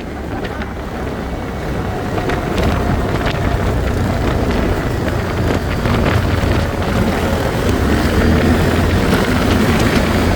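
ATV engine running steadily and growing louder, with scattered clicks and knocks over it.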